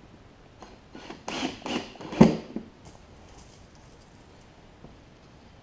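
A handful of short knocks and clicks on a hard plastic cooler lid as a small metal insert is pressed and set into a hole, the loudest a single thump about two seconds in.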